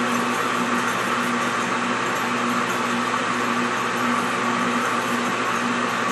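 Small belt-driven lathe running steadily, spinning a 3D-printed ear cap on a sanding arbor while a cloth is held against it to buff it. A steady whirring hum with a faint regular pulse.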